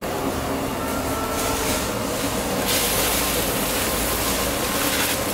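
Small beans pouring from a plastic bag into a large aluminium pot of water, a steady hiss that grows louder about halfway through, over a continuous low rumble.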